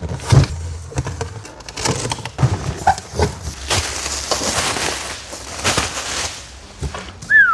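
Cardboard box and its packaging being opened by hand: rustling, crackling and tearing, with scattered knocks and a longer stretch of tearing or scraping in the middle. A short falling squeak near the end.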